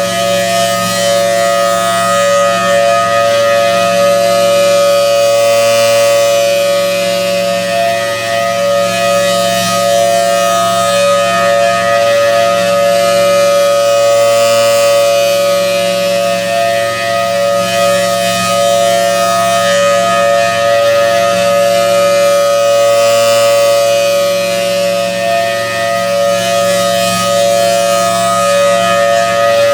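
Federal Signal Thunderbolt 1000T dual-tone warning siren sounding a steady full alert tone. It holds one unchanging chord, swelling and fading about every four to five seconds as the rotating siren head sweeps past.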